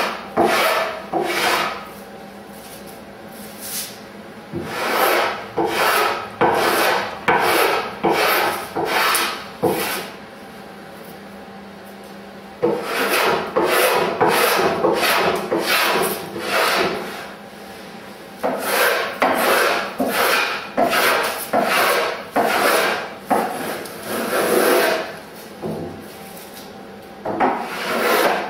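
Small block plane shaving a wooden paddle blank, each push a short rasping stroke that peels off a curl of wood. The strokes come in quick runs of about one or two a second, broken by a few pauses of about two seconds.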